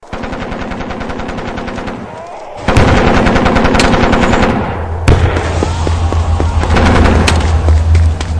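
Battlefield sound effect: rapid machine-gun fire, a brief lull, then heavier gunfire breaking in loudly about two and a half seconds in. About five seconds in a sharp blast hits, and a deep steady rumble continues under the shooting.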